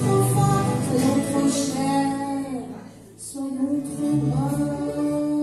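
A live amateur band playing a French song: strummed guitars under singing with a woman's voice in the lead. The music thins out about three seconds in, then comes back with a long held note.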